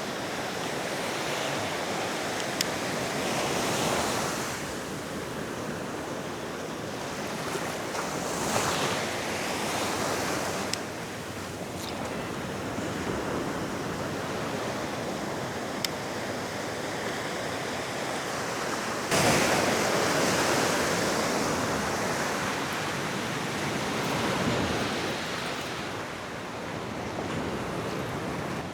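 Ocean surf breaking and washing up the beach in repeated swells, each surge every several seconds. The loudest wave hits suddenly about two-thirds of the way through. Wind is rumbling on the microphone.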